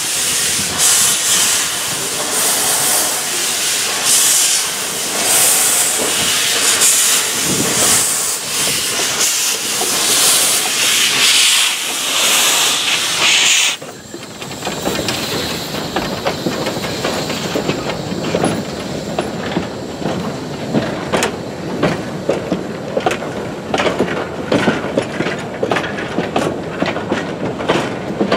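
Steam tank locomotive pulling away with steam hissing loudly from around its cylinders, a dense hiss that cuts off abruptly about halfway through. The wooden coaches then roll past, with a run of clicks from wheels crossing rail joints and points.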